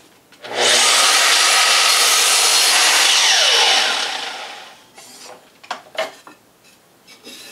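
Sliding mitre saw starting up and cutting through a wooden picture-frame moulding for about three seconds. The motor is then switched off and winds down with a falling whine. A few light knocks follow.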